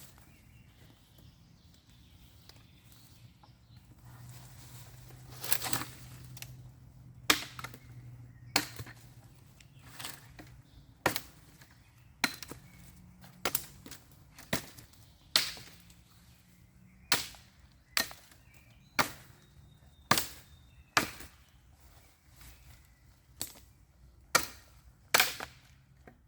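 Axe chopping wood: a run of about fifteen sharp strikes, roughly one a second, starting a few seconds in.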